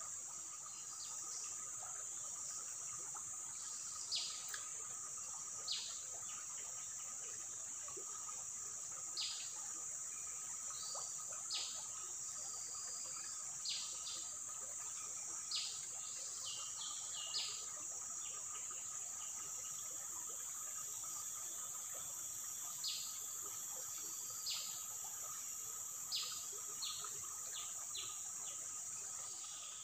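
Forest insects, crickets or cicadas, keeping up a steady high-pitched drone, with a bird repeating short falling whistled calls every second or two.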